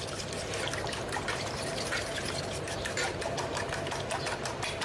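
Fish asam pedas gravy simmering in a wok over a gas burner, as a ladle dips in and pours it back: a steady rush of liquid with many small pops.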